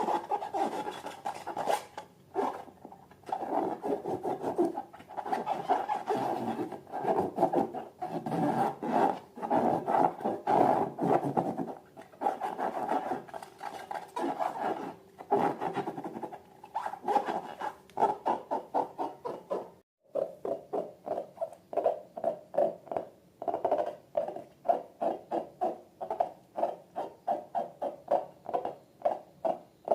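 Rubber balloons squeaking as they are rubbed and squeezed by hand: a dense run of squeaks, then after a short break about two-thirds of the way in, a regular train of squeaks about two and a half a second.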